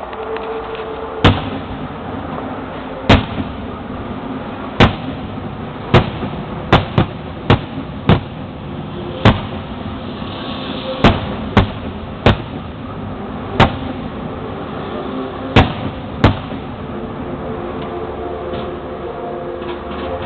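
Fireworks display: shells bursting in sharp bangs, about fifteen at irregular intervals and sometimes two or three in quick succession, over steady background noise. The bangs stop a few seconds before the end.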